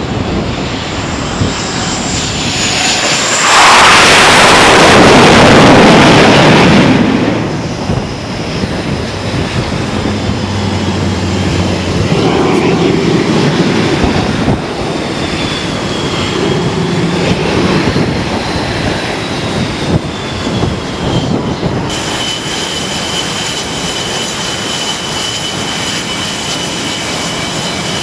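F/A-18 Hornet jet engines on a carrier flight deck. An incoming Hornet's jet noise swells to a loud peak for a few seconds as it comes in to land. Then comes the steady rumble and whine of Hornets taxiing, with a high steady whine from about 22 s in.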